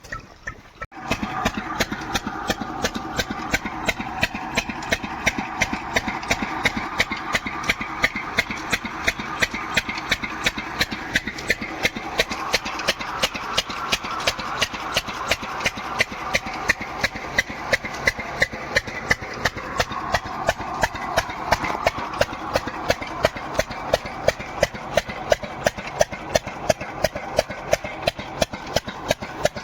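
Diesel engine driving an irrigation water pump, running steadily with an even, rapid beat of sharp strokes.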